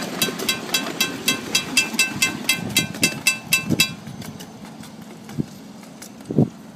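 A train bell ringing rapidly, about five or six strikes a second, stopping about four seconds in. After it, a few dull knocks.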